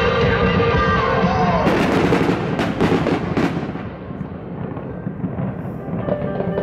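Aerial firework shells bursting, a quick run of bangs and crackles about two seconds in, over loud music from the synchronised show soundtrack. The music dips about four seconds in and a new passage begins near the end.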